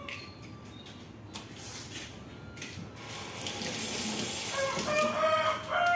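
Water running from a tap into a sink, building over a few seconds. Near the end a rooster crows loudly.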